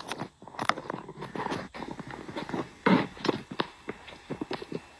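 Irregular clicks, knocks and rubbing from a phone being handled and set back in place, with one louder knock about three seconds in.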